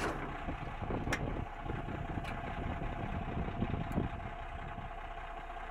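Diesel engine of a Caterpillar scraper idling steadily, heard from the operator's cab, with a few faint clicks.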